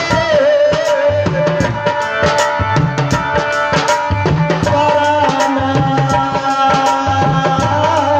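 Live folk stage music: a hand drum beating a steady rhythm under a sustained, wavering melody line.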